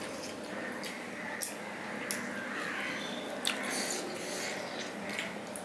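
Soft eating sounds of hand-eating a rice meal: fingers working rice and curry on a steel plate, and chewing, with a few short clicks.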